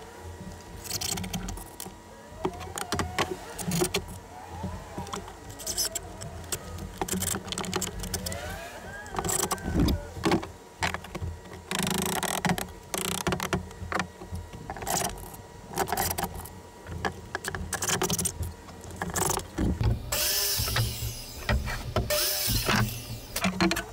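Cordless drill driving pocket screws into wooden rails in short runs, mixed with knocks from a red mallet tapping the rails into place. Near the end a circular saw cuts a plank.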